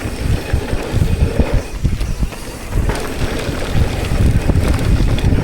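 Wind buffeting the microphone over the rattle and tyre noise of a mountain bike riding fast down a rough trail.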